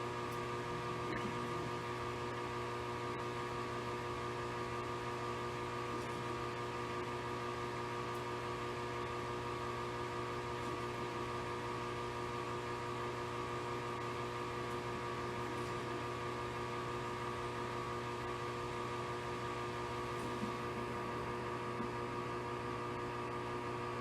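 Steady electrical hum made of several constant tones over a light, even hiss, like a fan or powered equipment running in a small room.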